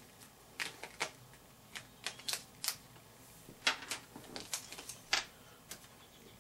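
Scattered light clicks and taps, about a dozen at irregular intervals, from small cables and plastic connectors being handled and set down on a desk.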